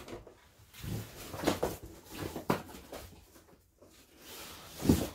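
Handling noises as plastic graded-comic slabs are moved about: a series of short knocks and rustles, then a louder low thump near the end.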